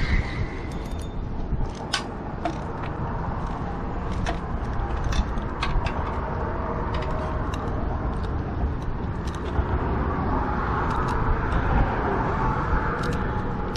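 Steady outdoor background rumble, strongest in the low end, with scattered light clicks and ticks.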